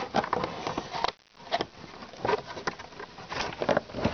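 A cardboard model-car display box being handled on a wooden table: fingers scraping and tapping the cardboard, with scattered small knocks and rustles and a short pause about a second in.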